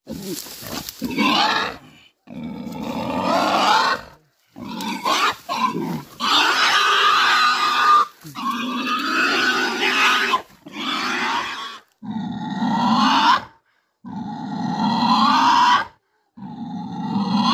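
A black pig squealing in distress as it is grabbed and held down. It gives a string of loud, long squeals, each a second or two, with short breaks between them.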